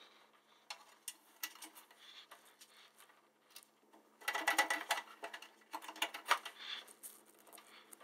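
Faint rustling and scattered small clicks of Cat6 Ethernet cables being handled and pulled through the holes of a metal patch panel, with a denser run of scraping and clicking about four to five seconds in.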